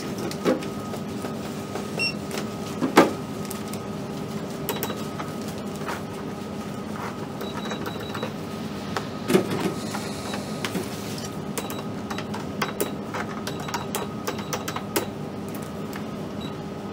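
Supermarket checkout ambience: a steady electrical hum runs under scattered clicks and taps from the cash register and counter as the cashier works the till.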